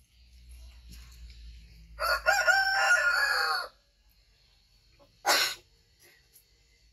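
A rooster crowing once, one long pitched call lasting under two seconds, followed about a second and a half later by a brief sharp sound.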